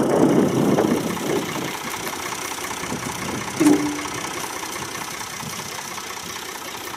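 Backhoe loader's diesel engine idling steadily, a little louder in the first second or so, with one short sharp sound a bit over halfway through.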